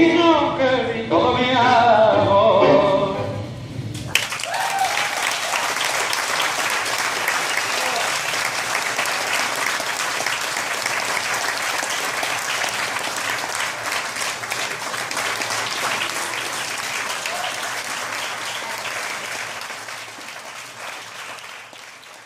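A tango song's last sung phrase with the orchestra stops abruptly about four seconds in. The audience then applauds steadily, the clapping fading out near the end.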